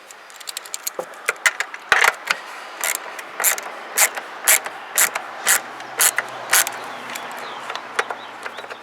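Socket wrench ratchet clicking as the 13 mm battery hold-down nut is loosened: quick light runs of clicks at first, then louder clicks about two a second through the middle of the stretch.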